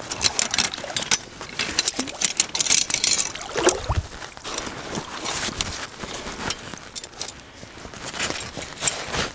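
Water splashing and sloshing around waders in a shallow creek, with metal clinks and rattles of a steel trap and its wire being handled.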